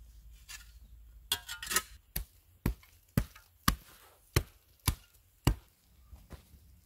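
Short-handled axe chopping into an earth bank, about nine sharp strokes at roughly two a second, stopping near the end.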